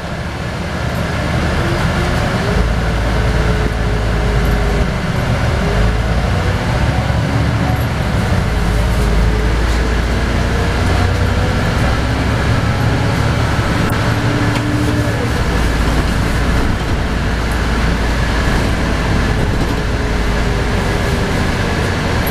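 LiAZ 5292.22 city bus heard from inside the passenger cabin while driving: a steady low engine and drivetrain rumble, with a whine that climbs in pitch several times as the bus gathers speed.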